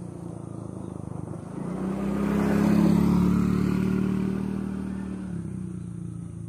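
A motor vehicle passing close by, its engine getting louder to a peak about three seconds in and then fading away.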